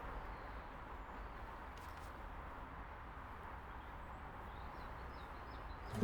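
Quiet outdoor garden ambience, a low steady background hum, with a faint run of bird chirps a little past the middle.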